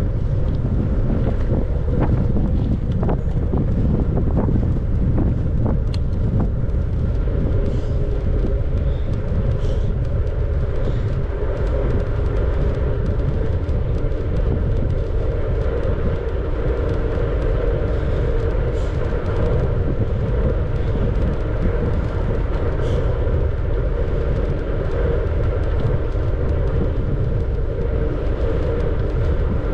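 Steady rush of wind over the microphone with the tyre and road noise of a bicycle riding along, and a few faint clicks in the first few seconds.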